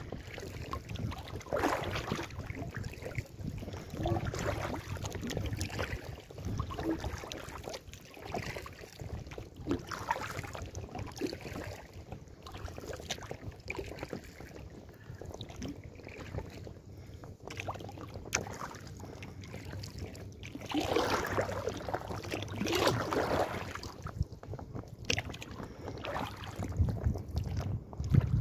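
Kayak paddle strokes from an inflatable kayak, the blades splashing and dripping in the water about every two seconds, louder a little past two-thirds of the way through, over a light low rumble of wind on the microphone.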